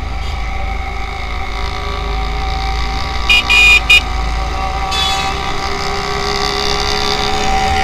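Motorcycle riding along a road, with its engine running under a heavy rumble of wind on the microphone. About three seconds in, a high-pitched vehicle horn gives three quick toots, the middle one longest.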